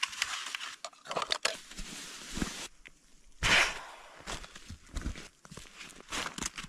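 Irregular rustling and scuffing of a person moving about, a series of short noisy bursts with no steady rhythm.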